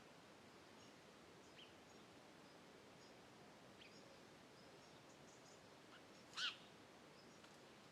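Quiet outdoor ambience with faint, scattered bird chirps. One clearer short bird call comes about six and a half seconds in.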